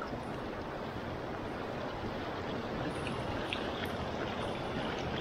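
Shallow mountain river running steadily over boulders and stones in a riffle, an even rushing of water.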